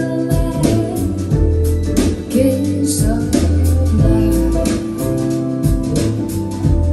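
A song with singing, plucked guitar and strong, deep bass notes over a steady beat, played back through KEF LS50 Meta bookshelf speakers with a subwoofer.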